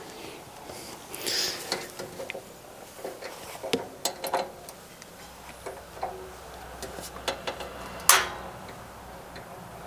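Scattered faint clicks and knocks from working the control knob and igniter of a compact gas grill while trying to light it, with one short, sharp burst of noise about eight seconds in.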